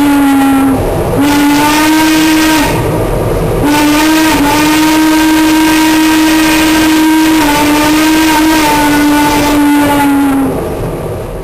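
Steam whistle of Shay No. 5, a geared steam locomotive, sounding for grade crossings. It blows in long blasts, with short gaps about a second in and near three seconds, then one long blast of about six seconds whose pitch wavers slightly before it fades out near the end.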